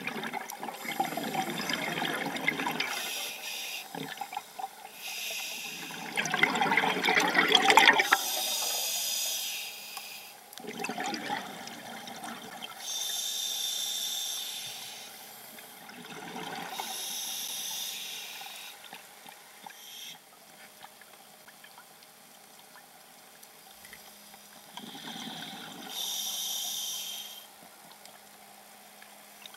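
Scuba regulator breathing underwater: the rush of exhaled bubbles alternating with the high hiss of each inhalation, about four breaths several seconds apart, with a longer pause before the last one near the end.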